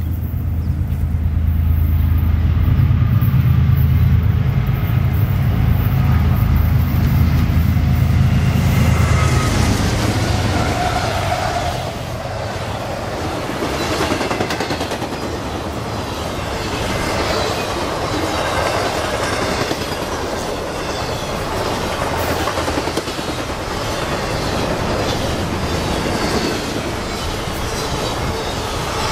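Freight train passing close by: a heavy low rumble, loudest for the first ten seconds or so, fades and gives way to the steady rolling noise of a long intermodal train's flatcars, with a clickety-clack of wheels over rail joints.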